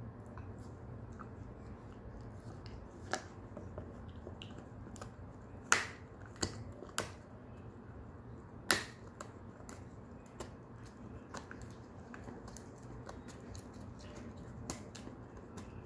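Shetland sheepdog gnawing a cow horn chew: irregular sharp clicks and cracks of teeth on hard horn, the two loudest about six and nine seconds in.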